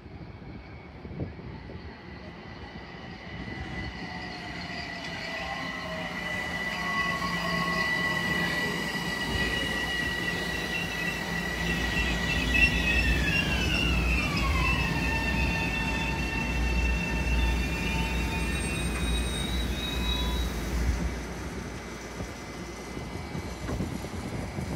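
Metro-North commuter train rolling past the platform: a high, steady whine with overtones that slides down in pitch about halfway through, over a low rumble of the cars and wheels on the rails that swells as the train goes by and then eases.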